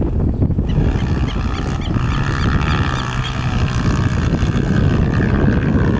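Honda CRF230 dirt bike's single-cylinder four-stroke engine running under throttle as the bike rides through the track, its engine note holding fairly steady for several seconds. Wind rumbles on the microphone underneath.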